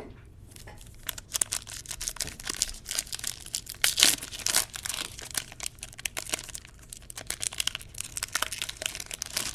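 A 2015 Topps Platinum Football pack wrapper being torn open and crinkled by hand: a dense run of crackles and rustles, loudest about four seconds in.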